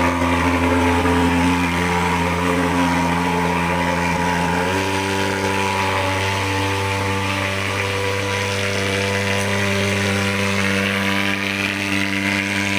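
Thermal fogging machine's pulse-jet engine running with a steady buzzing drone while it sprays insecticide fog against mosquitoes; the pitch steps up slightly about five seconds in.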